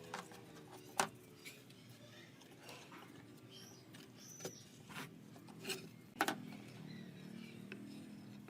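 Scattered light clicks and taps, about ten over several seconds, the sharpest about a second in and a pair around six seconds in.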